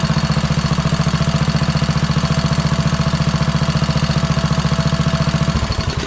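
Kohler Courage single-cylinder OHV engine on a Craftsman LT2000 lawn tractor running steadily, then switched off about five and a half seconds in and running down. The owner says it has some lifter noise.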